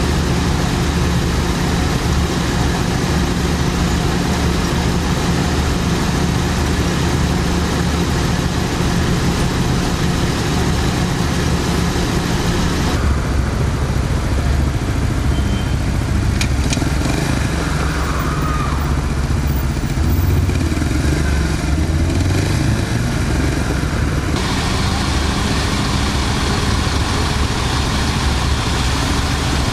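A motorcycle engine running steadily at idle. For about ten seconds in the middle the sound turns muffled, its high end cut away, then opens up again.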